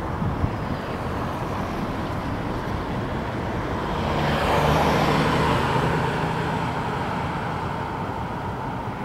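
A car driving past on the street: its tyre and engine noise swells to a peak about halfway through and then fades, over a steady background of traffic noise.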